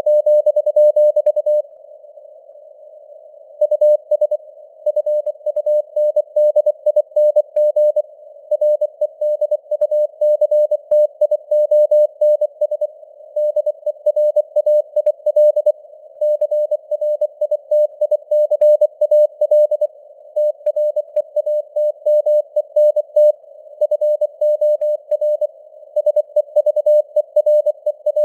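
Morse code (CW) sent at 24 words per minute: a tone of about 600 Hz keyed on and off in rapid dots and dashes over a narrow band of simulated radio noise, with slowly varying signal strength. The keying pauses for about two seconds near the start, then runs on without a break.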